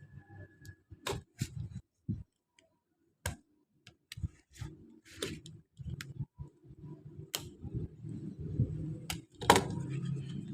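Plastic packaging of a RAM module being opened and handled: irregular clicks and crackles, with a louder crack about nine and a half seconds in.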